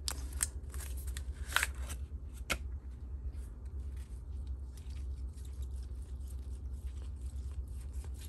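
Hard plastic PSA graded-card slabs clicking and rubbing against each other as a stack is slid out of a cardboard sleeve and fanned out, with a few sharp clicks in the first couple of seconds and softer rustling after. A low steady hum runs underneath.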